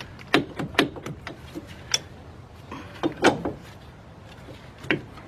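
Sharp metal clanks and knocks, about half a dozen, with a cluster about three seconds in, from tools and parts being worked at a car's front brake caliper that won't come off.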